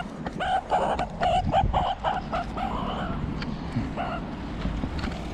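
Meerkat giving a rapid series of short, pitched chirping calls, about three or four a second, which thin out after about three seconds.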